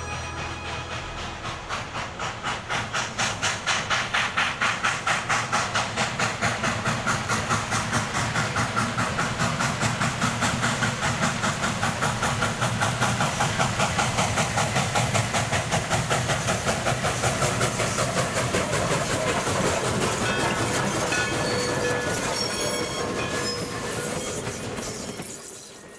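Steam locomotive running, its exhaust chuffing in a fast, even beat of several chuffs a second with steady hiss. The beat softens in the last few seconds, a few steady tones come in, and the sound cuts off abruptly.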